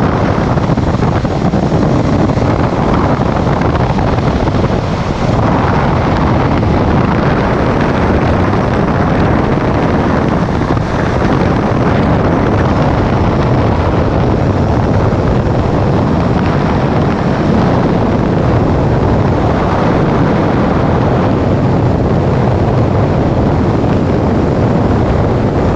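Loud, steady rush of wind buffeting the microphone at speed on a zipline ride.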